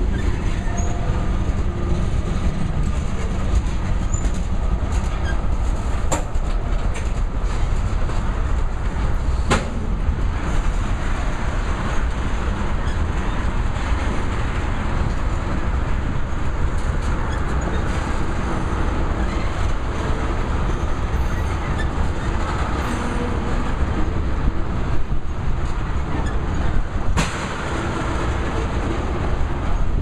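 Freight cars of a slow-moving train rolling past: a steady low rumble of steel wheels on rail with clickety-clack at the rail joints. A few sharp clanks stand out, the clearest about a third of the way in and near the end.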